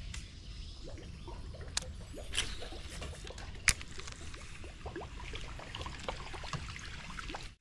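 Water gurgling and trickling in many small plops and drips, with a few sharp clicks, the loudest about three and a half seconds in.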